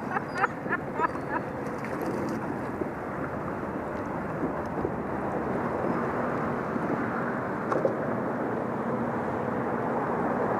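Steady rushing outdoor background noise with no clear rhythm, and a few short high sounds in the first second and a half.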